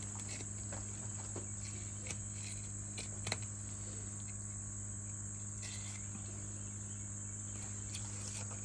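A steady high-pitched insect chorus with a low steady hum beneath it. A few faint clicks come from a fillet knife as it works down a flathead catfish's backbone, at about two and three seconds in.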